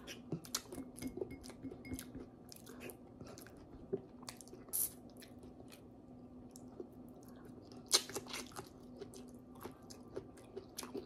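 A person chewing and biting boiled pork hock and vegetables close to the microphone, with irregular small crunches and clicks. A couple of louder crunches come about five and eight seconds in.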